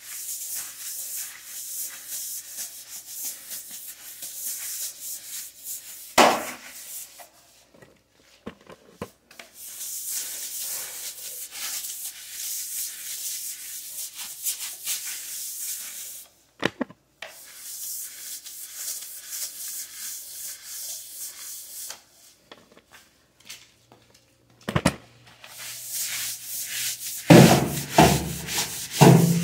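Stiff-bristle push broom scrubbing a wet, detergent-soaked ceramic tile floor in long runs of quick back-and-forth strokes. A few sharp knocks break in, the loudest about six seconds in.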